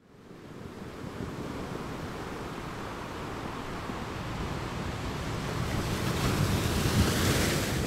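Ocean waves surging in, a steady rushing that builds over several seconds to a peak near the end, then begins to ease off.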